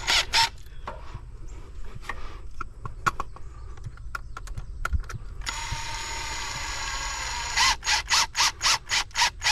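Cordless drill driving a screw into a floodlight mount: the motor runs steadily for about two seconds partway through, then gives a quick run of rhythmic clicks near the end, the clutch slipping as the screw seats. Scattered clicks and knocks from handling the drill and screw come before.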